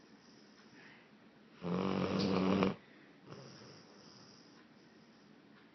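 A Blue Lacy dog snoring loudly: one pitched, rattling snore about a second long, a little under two seconds in, with quiet breathing before and after it.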